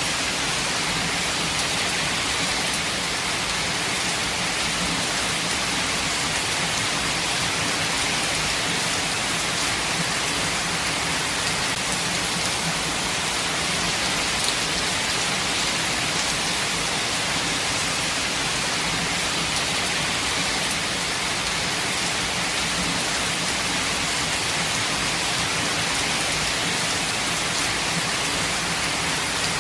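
Steady heavy rainfall, a dense even hiss of drops on surfaces with fine pattering, unchanging in strength.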